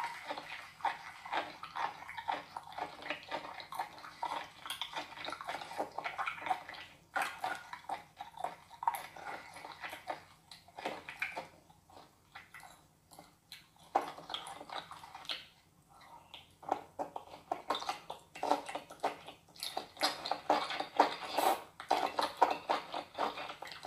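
Live small octopus squelching as it is pulled apart with chopsticks and fingers and slurped up close to the microphone: dense, rapid, sticky wet smacks and clicks. They thin out for a few seconds in the middle and are busiest near the end.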